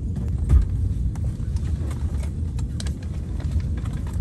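Steady low rumble inside an Airbus A320neo's cabin on the ground, with scattered light clicks and rattles.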